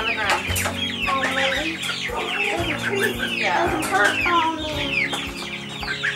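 Cornish cross meat chicks peeping in a crowded crate, many short falling chirps overlapping, over background music holding steady low notes.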